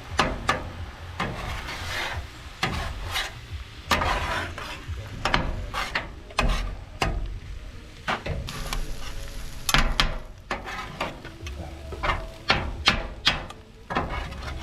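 Metal spatulas scraping and clacking on a Blackstone flat-top griddle in quick, irregular strokes, over the sizzle of food frying: eggs being cooked and chopped up to mix into fried rice.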